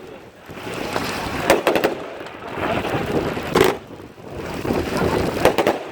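Fireworks and firecrackers going off in the distance: clusters of sharp bangs and cracks about every two seconds over a steady rumble.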